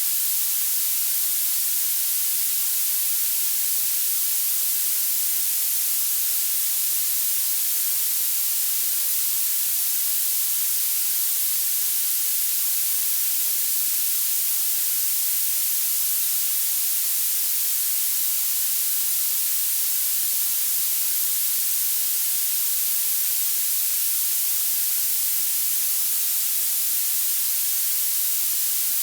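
Generated violet (purple) noise: a steady, unchanging high hiss, strongest at the very top of the pitch range and nearly absent in the lows.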